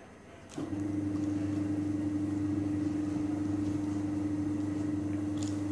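A steady machine hum, one even tone over a lower drone, switching on with a click about half a second in.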